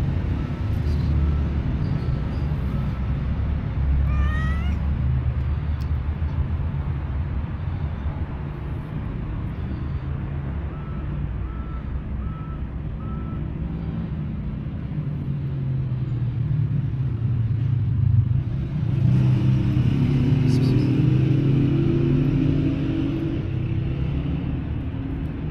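A tortoiseshell stray cat meowing, over a steady low rumble of traffic.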